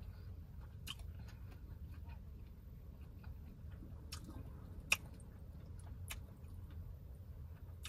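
Close-miked eating sounds: chewing, with scattered small clicks from seafood shells handled in a bowl and one sharper click about five seconds in, over a low steady hum.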